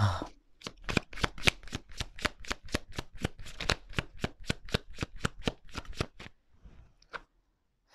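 A tarot deck being shuffled in the hands: a quick, even run of card slaps, about five a second, that stops about six seconds in, with a couple of last taps after.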